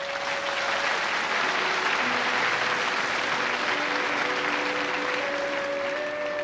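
Theatre audience applauding, fading away near the end, while an orchestra plays soft held notes underneath.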